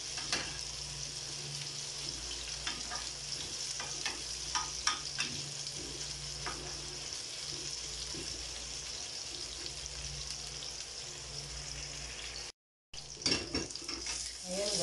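Cubed potatoes and carrots frying in hot oil in a pan, a steady sizzle, with scattered clicks and scrapes of a spoon and spatula stirring them. The sound cuts out for a moment near the end.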